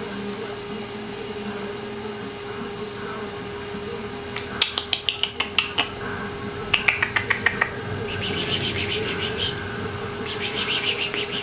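Quick trains of sharp mouth clicks or kissy sounds, such as a person makes to get a puppy to look up. They come in two short runs about five and seven seconds in, followed by softer hissing smacks near the end, over a steady hum.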